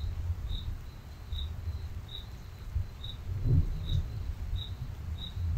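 A cricket chirping regularly, single short high chirps about three every two seconds, over a low, uneven rumble.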